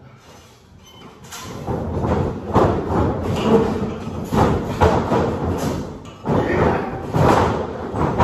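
Wrestlers' feet and bodies thudding on a wrestling ring's canvas mat: a run of heavy, irregular thumps as they move and run the ropes. It ends with a loud bump as one is taken down onto the mat.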